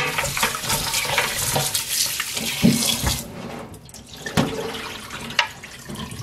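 Tap water running into a stainless pot of parboiled beef short ribs in a steel sink while gloved hands turn the pieces over to rinse them. The water stops about three seconds in, leaving a few wet knocks as the meat is handled and the pot is tipped to drain.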